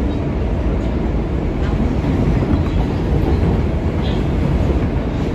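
R143 subway car running along the track, a steady low rumble of wheels on rails and car noise heard from on board.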